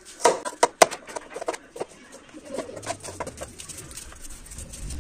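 Kitchen knife chopping sweet chili peppers on a plastic cutting board: a quick string of sharp taps in the first two seconds, then softer, irregular cutting.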